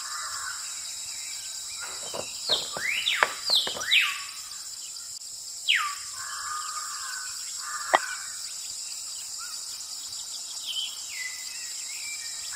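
Birds chirping and giving falling whistled calls over a steady high outdoor hiss, the calls clustered a couple of seconds in, with two sharp clicks later on.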